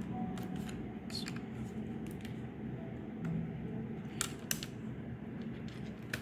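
Small plastic clicks and taps as cable plugs are pulled from a laptop motherboard's connectors, a few faint ones and two sharper clicks a little after four seconds in, over a low steady hum.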